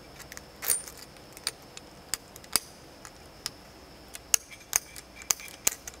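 Irregular light metallic clicks and clinks, about nine sharp ones, as a faucet's metal mounting collar is handled and slid off its braided metal supply lines by hand.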